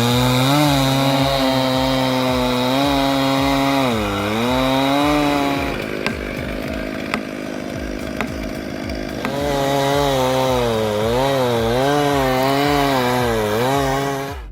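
Chainsaw with a 6.5 HP engine cutting into a spruce trunk, its engine pitch wavering and sagging as the chain bites. It eases off for about three seconds in the middle, with a few sharp clicks, then cuts again.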